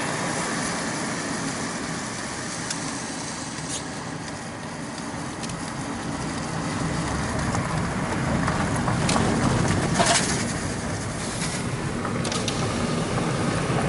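Car driving, with steady road and engine noise heard from inside the vehicle and several sharp clicks. It gets somewhat louder from about eight seconds in.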